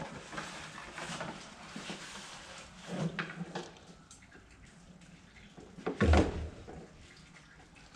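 Scattered knocks and scrapes from parts being handled, with one louder thump about six seconds in.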